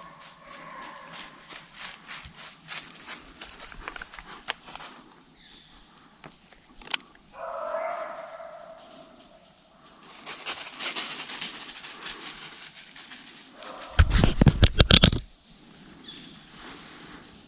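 Hunting hounds baying, with drawn-out calls at the start and again about eight seconds in, over crackling and rustling. About fourteen seconds in, a loud rough rumbling burst lasts about a second.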